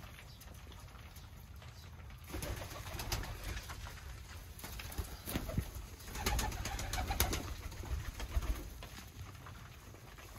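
A flock of tippler pigeons feeding on scattered grain: cooing, with many short clicks of beaks pecking at the seed. It picks up about two seconds in and is busiest in the second half.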